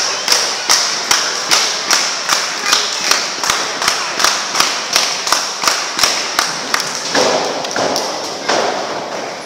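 Steady rhythmic hand slaps or claps close by, about two and a half a second, in a loud hall, stopping about seven seconds in.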